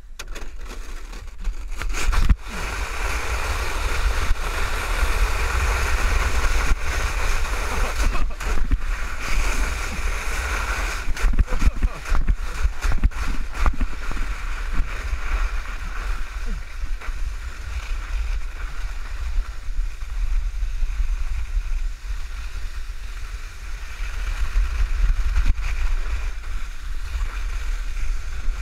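Plastic sled sliding fast over packed snow: a steady scraping rush of the hull on the snow with a heavy low rumble of wind and vibration on the camera's microphone. It starts about a second in, with a few knocks as the sled rides over bumps.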